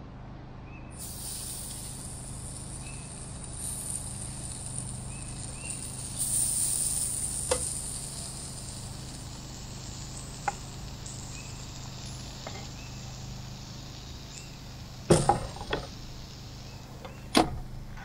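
Raw chicken sizzling as pieces are laid one by one on the hot grate of a Coleman portable propane grill, with a few light clicks of metal tongs on the grate. Near the end come several sharp clanks, the loudest sounds, as the grill lid is shut and the tongs are set down.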